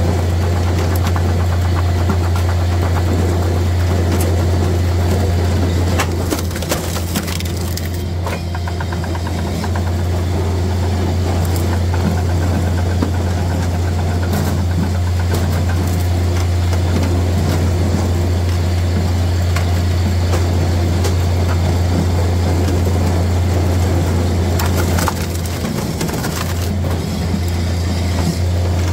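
Japa 405 firewood processor running steadily with a low hum, while logs are forced through its splitting knife, wood cracking and splintering with scattered sharp snaps and knocks.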